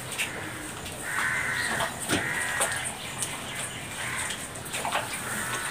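Crows cawing, three harsh caws of about half a second each. Under them are a few faint wet squelches from ripe palmyra fruit being squeezed by hand in a basin of water.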